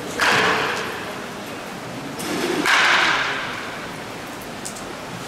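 Baseball bats hitting pitched balls twice, a couple of seconds apart. Each hit is loud and sudden, with an echo that dies away over about a second in a large indoor hall.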